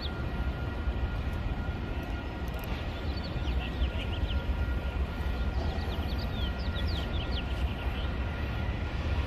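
Amtrak diesel locomotive standing and idling: a steady low rumble with a faint, even whine over it. Short high chirps come in two clusters, about three seconds in and again around six to seven seconds in.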